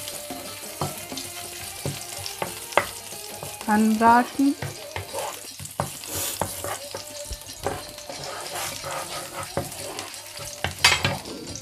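Pressed garlic sizzling in hot coconut oil in a frying pan, stirred with a wooden spatula that scrapes and taps against the pan throughout, with a few louder knocks near the end.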